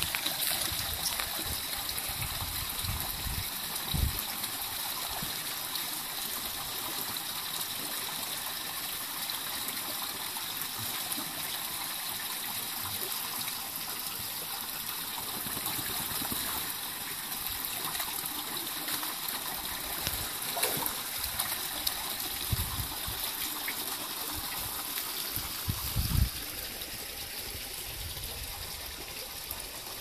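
Shallow water running and trickling in a concrete channel, with splashes from two golden retrievers wading through it; a few louder splashes come about four seconds in and again near the end, after which the running water alone is a little quieter.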